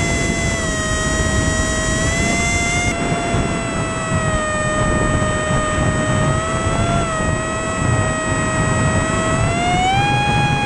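Electric motor and pusher propeller of a cardboard RC airplane whining steadily in flight, heard from an onboard camera with wind rushing over the microphone. The pitch sags slightly through the middle and rises near the end as the motor speeds up.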